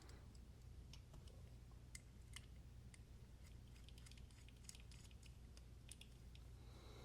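Faint, scattered small clicks and ticks of metal folding-knife parts being handled and fitted together during reassembly, over a low steady background hum.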